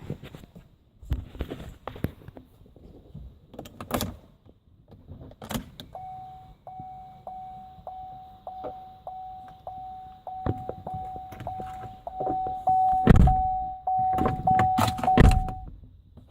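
Chevrolet Trax with an exhausted battery: keys rattle and a few clunks, then a steady electronic warning tone sounds for about ten seconds, chopped up again and again by clicks, as the flat battery fails to start the car. Loud knocks come near the end.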